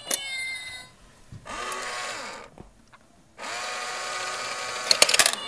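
Battery-powered stealing-cat coin bank toy: its small motor whirs in two spells as the lid lifts and the toy cat rises, then plastic clicks near the end as the paw mechanism snaps.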